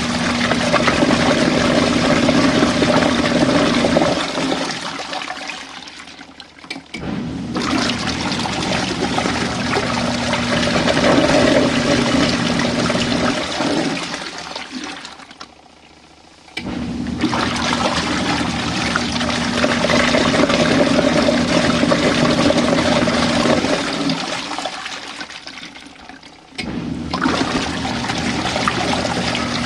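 Water rushing through a small RV washing machine in repeated spells, with a steady hum under each. Each spell fades out over a couple of seconds, then the flow starts again abruptly about ten seconds after the last one began.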